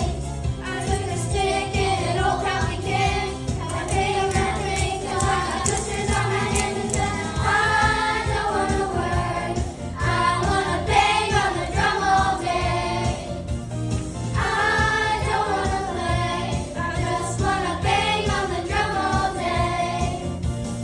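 A song with a group of voices singing a melody over a steady beat, the sung notes held and gliding.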